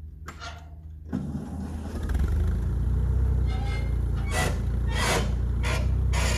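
A vehicle engine running: its low rumble grows louder about two seconds in and then holds steady, with a few short rushes of noise over it near the end.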